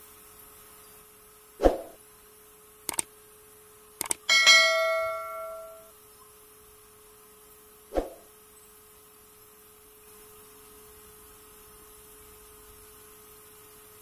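Subscribe-button animation sound effects: several mouse-like clicks, and a notification bell that dings once and rings out for about a second and a half, the loudest sound. A faint steady hum runs underneath.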